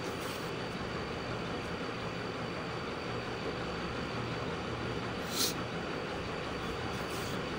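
A steady low hum with background noise, and one brief high swish about five seconds in.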